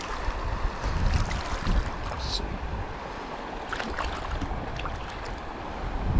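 Shallow river water rushing over a rocky riffle in a steady wash, with wind buffeting the microphone in low rumbles.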